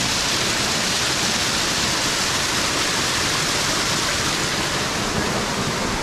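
Small waterfall spilling down a rock face: a loud, steady rush of falling water.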